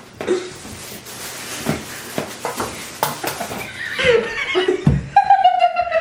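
People laughing, ending in a long, high-pitched squealing laugh that slides slowly down in pitch; light knocks and clatter come before it.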